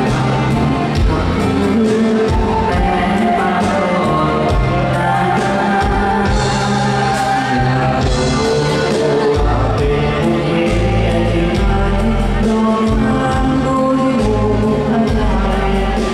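Men's vocal group singing a Thai pop song over amplified music with a heavy bass, played through stage loudspeakers. A brighter, hissy stretch comes in about six to nine seconds in.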